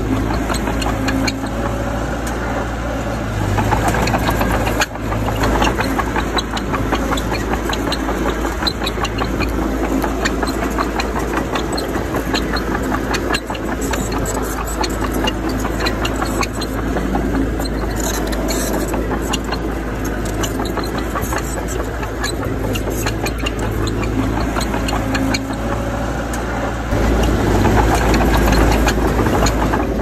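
Diesel engine of heavy earthmoving machinery running steadily, with a dense clatter of small clicks throughout; it gets louder near the end.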